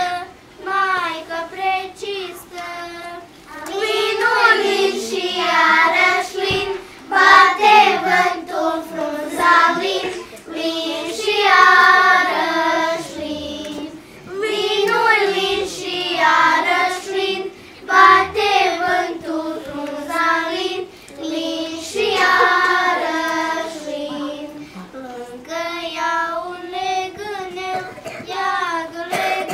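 A children's choir singing together, the melody moving in phrases of a few seconds with short breaks between them.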